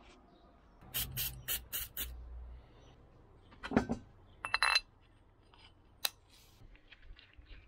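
Handling noises from an old engine mount on its metal bracket and a rubber mount being moved about on the car's bodywork. A quick run of sharp clicks comes about a second in, then a knock, a short metallic clatter with a brief ring, and a last click near the end.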